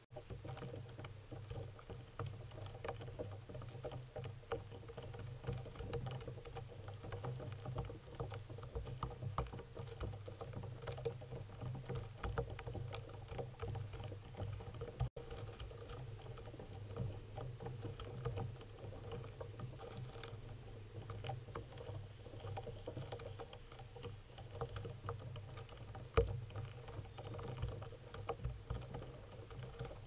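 Rock pigeons pecking birdseed off a wooden railing: a run of small irregular taps and clicks over a steady low hum.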